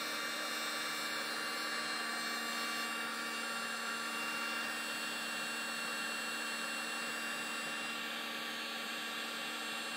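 Ryobi cordless heat gun running steadily, blowing hot air: an even fan whir with a few faint steady tones.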